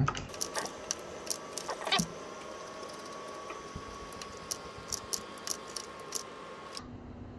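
Scattered, irregular clicks of a computer mouse and keyboard during computer work, over a faint steady tone.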